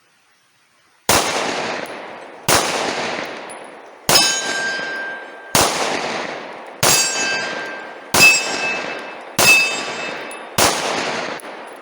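Eight shots from a Glock 20SF 10mm pistol firing 200-grain full metal jacket rounds, fired at a steady pace about one and a half seconds apart, each with a long echoing tail. A metallic ring lingers after several of the shots.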